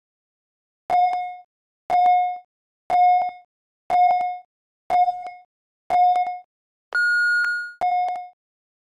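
Workout interval timer counting down: six short beeps, one a second, then a longer, higher-pitched beep signalling the start of the lift, followed right after by one more short beep.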